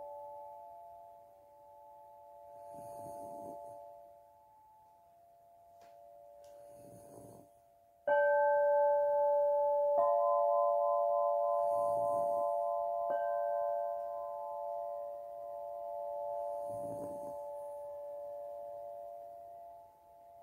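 Crystal harp ringing in clear, pure tones. A chord rings and fades over the first few seconds, then a bright strike comes about eight seconds in, another at ten and a third near thirteen, each sounding several tones at once that ring on and slowly die away. Underneath, a soft noise comes back every four or five seconds.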